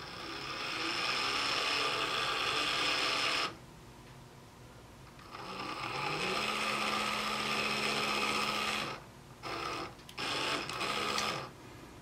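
Small DC motor under joystick-controlled PWM speed control, spinning a wheel. It speeds up and runs for about three seconds, then stops abruptly. It starts again with a rising tone that then holds steady for about three seconds. It cuts out and gives two short bursts near the end.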